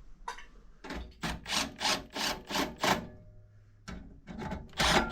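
A run of quick rubbing or scraping strokes, about three a second for two seconds, then a pause and a few more strokes near the end.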